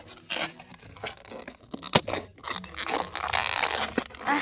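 Paper food packaging crinkling and rustling as it is handled, in irregular stretches with a few sharp clicks.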